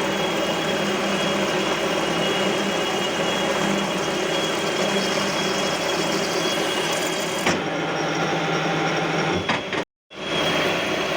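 CNC lathe running and machining a metal flange: a steady mechanical whir with a constant high tone. About seven and a half seconds in the sound changes abruptly with a click, and near the end it cuts out for a moment.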